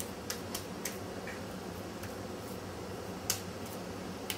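Sharp, wet clicks and smacks of hands squeezing and shaping minced ladyfish meat into patties in a glass bowl. There are about six: several in the first second, and the loudest a little past three seconds. A steady low hum runs underneath.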